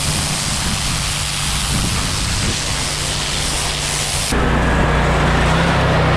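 Pressure washer running, a steady engine tone under the loud hiss of its water spray. About four seconds in the sound changes abruptly to a louder, lower rumble with less hiss.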